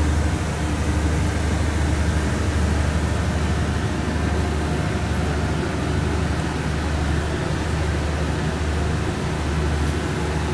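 Steady low rumble and hiss inside a State Railway of Thailand sleeper carriage, with no clear changes or knocks.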